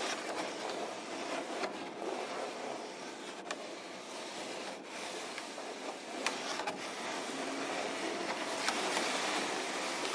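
Contemporary chamber music for flute, viola and harp played with unpitched extended techniques: a soft, airy rushing sound, like breath or bow noise, with no clear notes. A few light clicks run through it, and it swells slowly louder over the second half.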